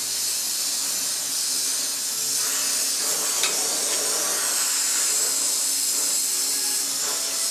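Gas brazing torch flame hissing steadily as it heats the bridge joint on a steel bicycle frame's stays, with a light tick about three and a half seconds in.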